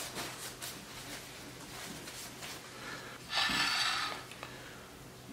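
Quiet handling sounds at a kitchen counter: faint small clicks and knocks, with one brief rustling hiss about three and a half seconds in.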